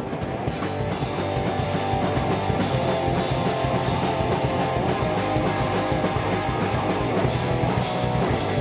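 Heavy metal music with electric guitar and fast drumming, fading up over the first second and then running at a steady level.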